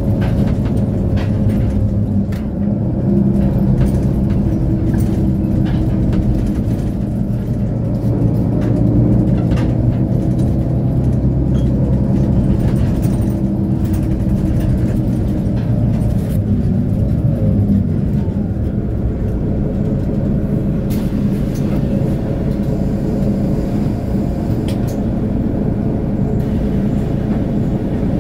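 Mercedes-Benz O530 Citaro Facelift Ü bus's rear-mounted engine idling steadily with a low hum, the bus standing still.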